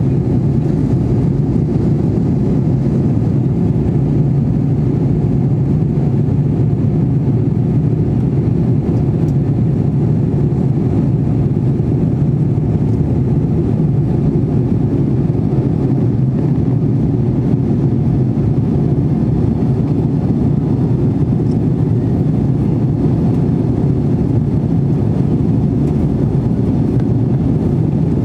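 Steady low rumble of engine and airflow noise inside the cabin of an Airbus A320-family airliner, holding even throughout.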